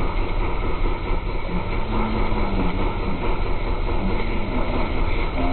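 A boat's engine runs steadily, with wind on the microphone.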